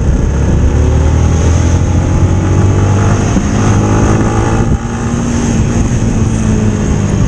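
Motorcycle engine running at road speed, with wind rushing over the microphone. The engine note dips briefly about two-thirds of the way through, then runs on steadily.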